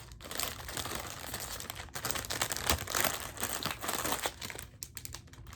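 Packaging crinkling and rustling as hands rummage through a box of bagged jewelry, a continuous crackle of many small rustles and clicks.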